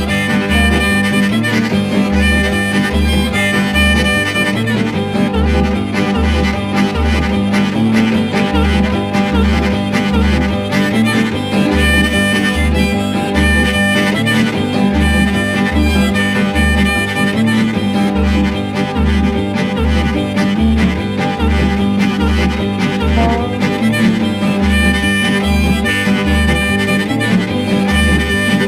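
Instrumental background music with a steady bass beat and sustained melody lines.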